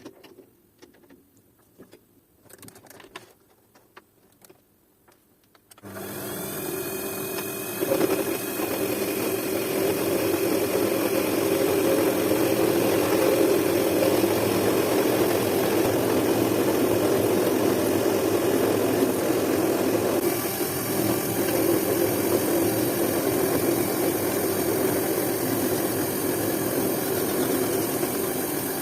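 A few light handling clicks, then an electric power tool switches on about six seconds in. It runs steadily and loudly for the rest of the time, with a brighter hiss in the second half as it works the gear material.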